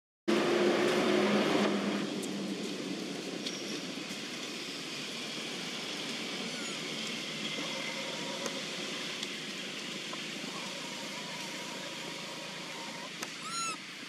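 Steady outdoor background noise, louder for the first couple of seconds, with a quick series of bird chirps near the end.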